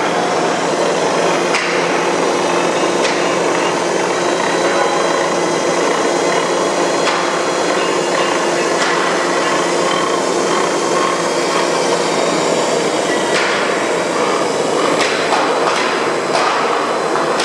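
Droop & Rein FSM 1255 bed milling machine running under power, a loud steady machining noise with a faint hum of steady tones and a few sharp clicks scattered through it.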